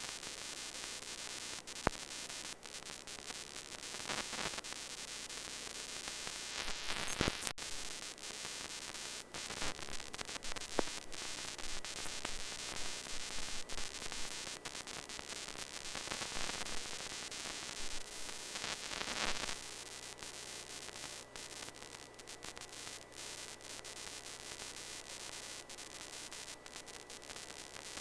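Steady hiss of static with scattered crackles and clicks: the noise on the audio of a weak, interference-laden analog amateur-TV repeater signal carrying no programme sound.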